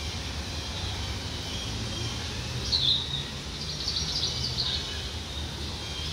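Birds chirping over a steady low outdoor background rumble: one loud high chirp a little under three seconds in, then a quick run of high chirps about a second later.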